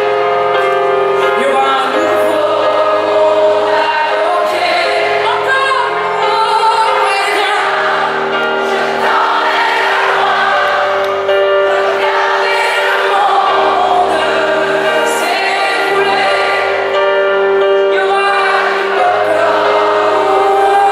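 Live pop band music led by piano, with many voices singing together over a long held keyboard note and a bass line that changes every second or two.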